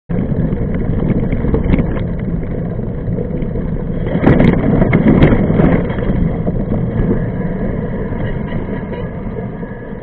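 Mountain bike rolling over a dirt trail: a loud, steady rumble of tyre and ride noise. It swells with sharp clattering about four to six seconds in, then gradually eases off.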